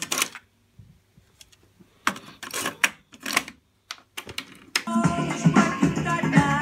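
Pioneer double cassette tape deck being loaded and started: the cassette and door clack shut, then the transport keys clunk in a few sharp clicks. About five seconds in, music plays back from the tape and cuts off abruptly at the end.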